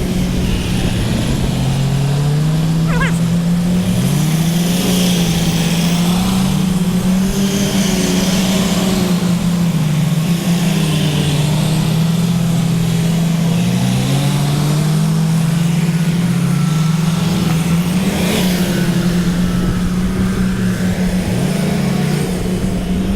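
A military convoy of large trucks driving past one after another. The engine note bends up and down as each truck goes by, and the tyre and engine hiss swells and fades every few seconds.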